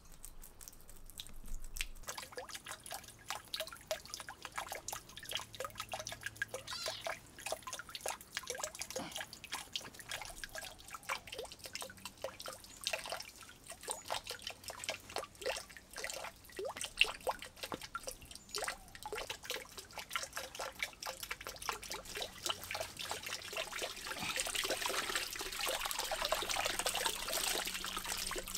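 Water trickling from a bamboo spout and dripping and splashing into a small pond, a rapid patter of drips. Near the end it swells into a louder rushing splash as water and small fish are poured from a woven basket into the pond.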